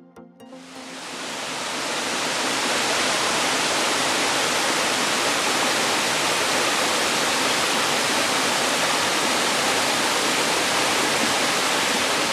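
Borden Brook Falls, a small woodland waterfall cascading down stepped rock, rushing steadily; the sound fades in over the first second or two.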